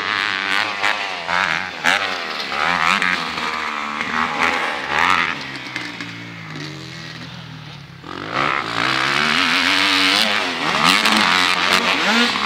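Motocross dirt bikes revving hard, engine pitch rising and falling as the riders work the throttle over jumps and whoops. The sound fades a little, then grows louder about eight seconds in as bikes come closer.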